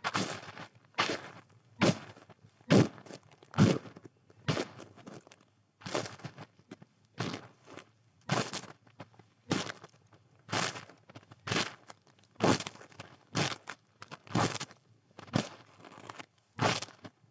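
Footsteps crunching through snow at a steady walking pace, about one step a second.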